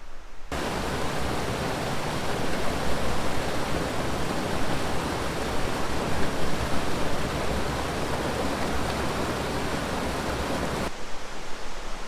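Rushing water: a steady, even rush that cuts in about half a second in and cuts off abruptly near the end.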